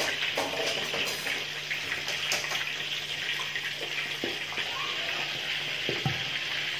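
Pork leg deep-frying in hot oil in a steel wok: steady sizzling. A few knocks in the second half as a glass lid is set on the wok.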